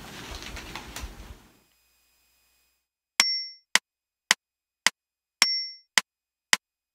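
Metronome count-in at 108 beats per minute: sharp clicks about half a second apart, with a higher beep on the first of every four. The clicks start about three seconds in, after a second and a half of faint room noise and then silence.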